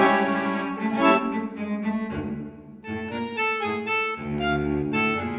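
Instrumental background music: a moving melody over a steady held low note, thinning out briefly about halfway through before picking up again.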